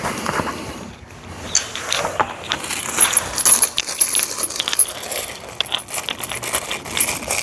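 Metal hardware and tools clinking and rattling as motorcycle frame slider parts and bolts are handled, a run of quick sharp clicks that grows busier about two seconds in.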